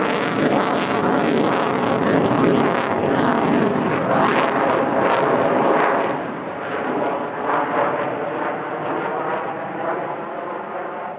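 Twin-engine F-15QA Ababil fighter jet passing overhead in a flying display: loud jet engine noise with a sharp crackle. It falls away after about six seconds and keeps fading as the jet moves off.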